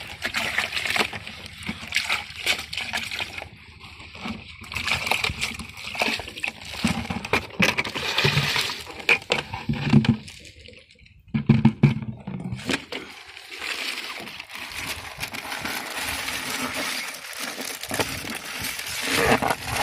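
Water splashing and sloshing in a plastic bucket as a plastic bag of squid and water is worked into it by hand, with the bag crinkling and rustling. The handling is irregular, with a brief lull about ten seconds in.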